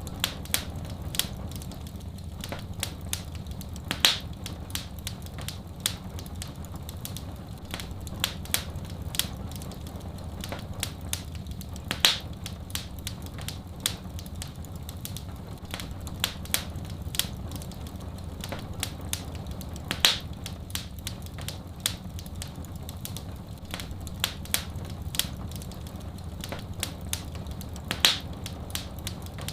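Wood fire in a fireplace crackling: a dense run of small irregular crackles, with a sharper pop about every eight seconds, over a steady low rumble.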